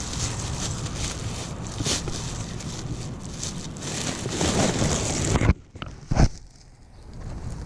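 Wind buffeting the microphone with rustling, broken by a sharp knock about five and a half seconds in and another about a second later, after which it goes much quieter.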